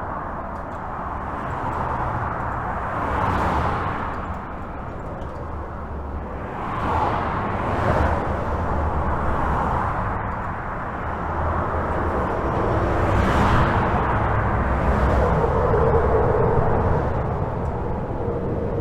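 Continuous highway traffic heard from beneath a bridge: a steady rumble of tyres and engines, with vehicles swelling past every few seconds. A steady hum rises out of the din about three-quarters of the way through.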